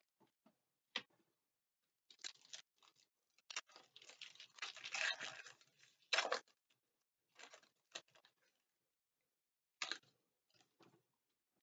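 Foil trading-card pack wrapper crinkling and tearing as it is pulled open by hand, in irregular bursts that are busiest from about three and a half to six and a half seconds in, with a sharp crackle about a second in and another near ten seconds.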